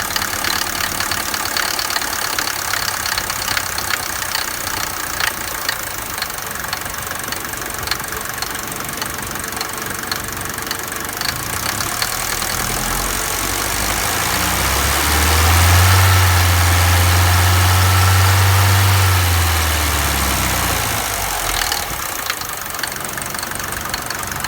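Mercedes 200D W124's four-cylinder diesel engine idling with a knock, revved up about halfway through, held for about five seconds, then let fall back to idle. The knock is heard at idle and stops when the engine is revved; its cause is unknown to the owner.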